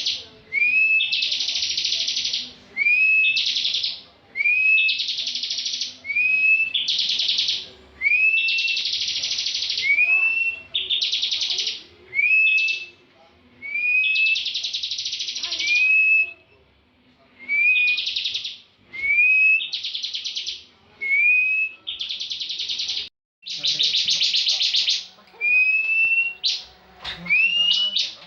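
Bar-winged prinia (ciblek) singing in full 'ngebren' style: repeated phrases of a short rising whistle followed by a dense, rapid buzzing trill, about one phrase every two seconds, with a few brief pauses.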